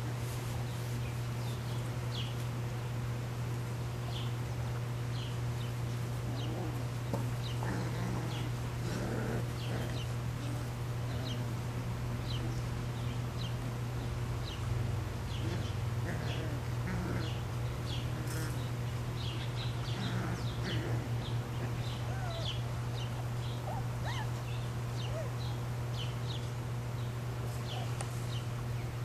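Rottweiler puppies about three and a half weeks old play-wrestling, with scattered small growls and squeaks. A steady low hum runs underneath, and short high chirps come and go.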